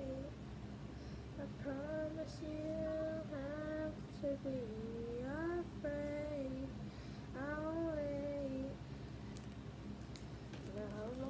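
A young girl singing alone without accompaniment, a slow ballad in several phrases of long held notes with short breaths between.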